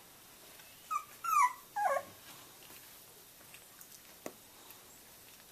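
Three-week-old Boxer puppy whimpering: three short, high cries in quick succession about a second in, the last one sliding down in pitch.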